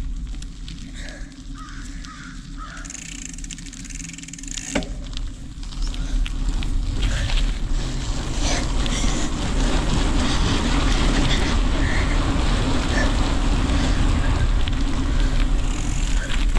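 Wind buffeting the microphone and bicycle tyres rolling over gravel. The noise swells and turns loud about five seconds in, after a few crow caws in the quieter opening seconds.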